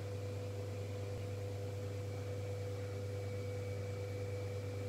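Steady low electrical hum with a fainter higher tone over a light hiss.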